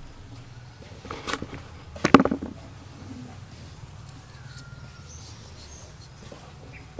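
Small kitchen knife paring the skin off a cucumber held in the hand: two short scraping cuts about one and two seconds in, the second louder, then only faint background.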